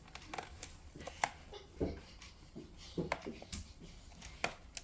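Scattered light clicks and taps at irregular intervals, with a few short soft thumps.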